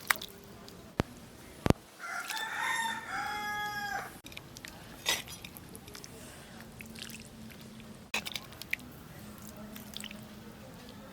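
A rooster crows once, about two seconds in, a single call lasting about two seconds. Sharp knocks come a few times before and after it.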